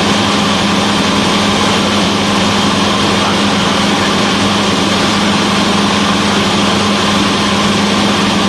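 Cessna 172's piston engine and propeller in flight, a loud, steady drone with an even hum that holds without change.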